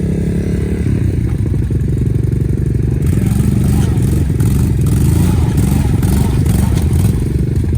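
ATV engine running under load through mud, with a noisier rush joining about three seconds in.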